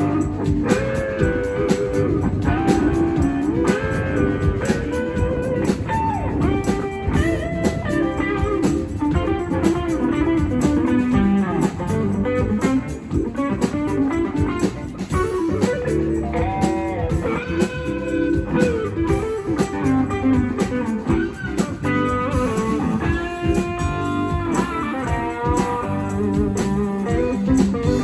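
Electric guitar solo with bending, sliding lead lines over a band's steady bass and drums.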